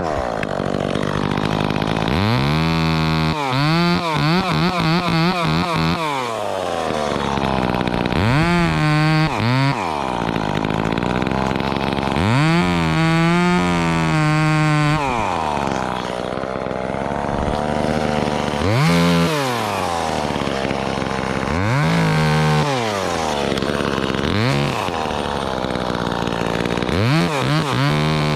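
Two-stroke chainsaw cutting through the top of a tree. It revs up to full throttle and drops back to a lower speed about six times.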